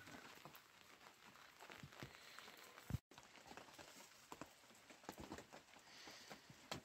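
Near silence: faint scattered ticks and crackles, with one short thump just before three seconds in.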